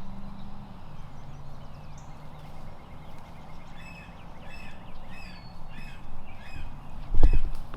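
Wild turkey yelping: a run of about eight short, evenly spaced yelps, about two a second. Near the end a loud, heavy thump cuts in.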